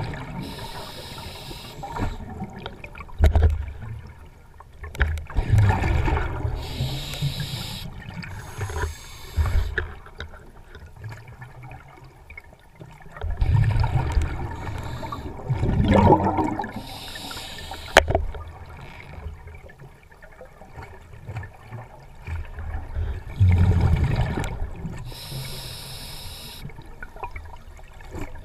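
Scuba diver breathing through a regulator underwater: a short hissing inhale through the demand valve, then a longer low burble of exhaled bubbles, repeating every few seconds.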